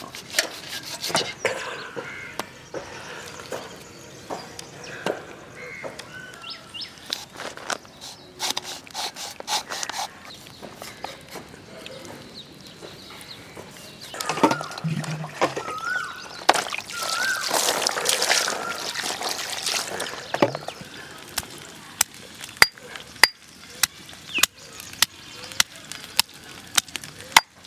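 Stone pestle pounding a root in a stone mortar: a run of sharp, even knocks, about one every half second or so, starting about three-quarters of the way in. Before that come softer, uneven handling sounds and a louder, unclear stretch in the middle.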